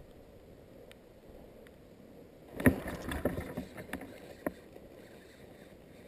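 Handling noise in a float tube as a spinning rod is lifted upright: about two and a half seconds in, a quick run of knocks, rustles and water sloshing for around two seconds, the first knock the loudest, over faint wind and lapping water.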